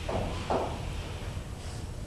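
Chalk on a blackboard: two short strokes about half a second apart, then faint scratching, over a steady low hum of room noise.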